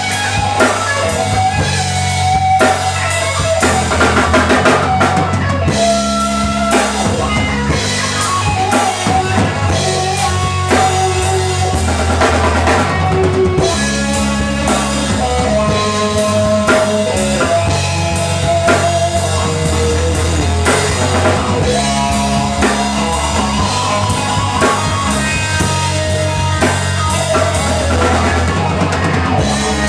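Live jam band playing an instrumental stretch of a funk-rock tune: drum kit keeping a steady beat under guitar lines and a low bass part.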